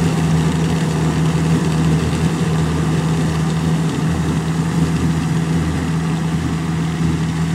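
Farm tractor's diesel engine running steadily under load, pulling a rotary tiller through a field, an even unbroken hum throughout.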